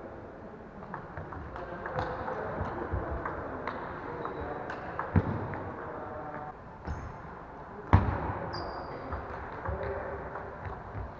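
Table tennis balls clicking off bats and tables in quick rallies, with a sharp loud knock about eight seconds in and a few short high squeaks. Voices murmur underneath.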